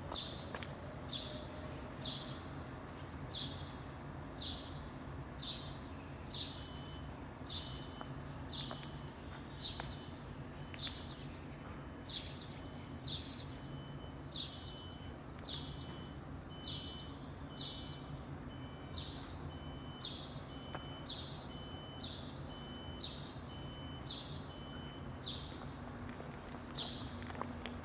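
Footsteps of a person walking at a steady pace, about two steps a second, each a short scuff, over a steady low background hum.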